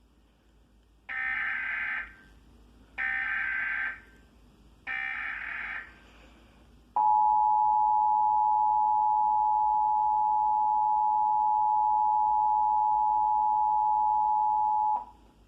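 Emergency Alert System SAME header: three loud bursts of screechy digital data, each about a second long, starting about a second in. Then the EAS two-tone attention signal, a steady dual tone, sounds for about eight seconds and cuts off sharply. The sequence opens a Required Monthly Test of the alert system.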